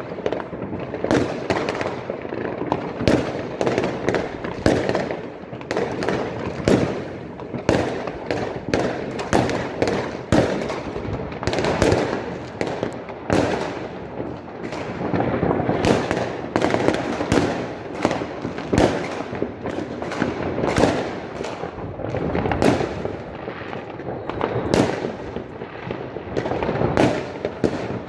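Many fireworks going off at once: irregular bangs and aerial bursts, several a second and overlapping, over a constant background of more distant ones.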